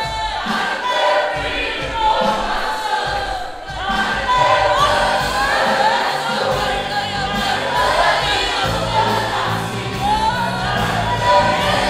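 Church choir singing a gospel song with full voices over instrumental accompaniment. A low sustained bass part comes in about four seconds in and grows stronger toward the end.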